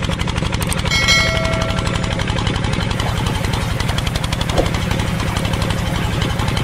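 Stationary pump engine chugging steadily at a rapid, even beat, as it drives a small water pump. A bell-like ding sounds about a second in.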